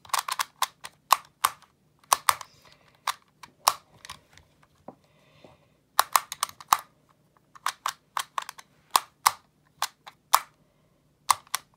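QiYi magnetic Rubik's Clock being solved by hand: a run of sharp, irregular clicks, single and in quick clusters, as the pins are pushed and the dials turned, each dial snapping into place on its magnets. The moves come with short pauses between them.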